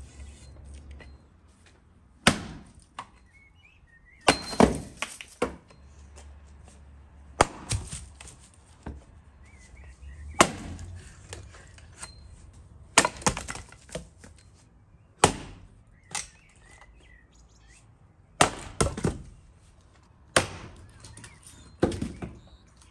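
An axe splitting firewood on a chopping stump: sharp chops every two to three seconds, several followed by smaller knocks as the split wood cracks apart and falls.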